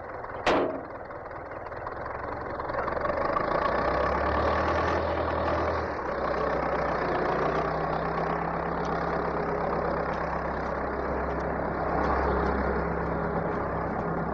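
A short sharp noise about half a second in, then a tractor engine that builds up over the next couple of seconds and runs steadily as the tractor pulls a plough.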